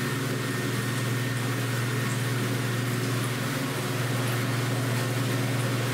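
Jetted spa bathtub's pump running, a steady low hum, with the jets churning the bathwater. It is a test run of the jets.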